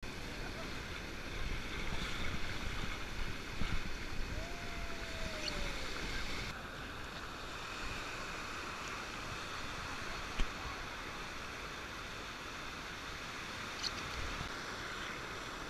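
Shallow ocean surf washing and breaking around a microphone held at water level, a steady rushing of foam and water. It is louder and fuller for the first six seconds or so, with one sharp tap about ten seconds in.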